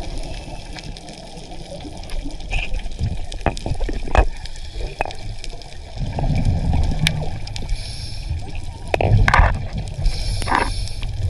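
Underwater gurgling and bubbling picked up by a diver's camera, with scattered clicks and two louder bursts of bubbles about eight and ten seconds in.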